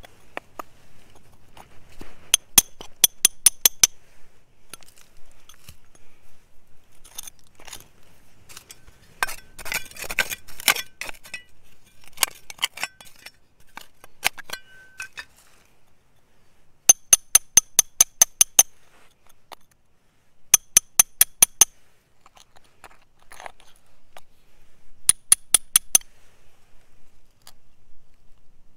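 Small steel hand digging tools (a trowel and a narrow pick) scraping through stony, gravelly soil and striking stones, in quick runs of ringing clinks at about five a second, with quieter scratching of grit between them.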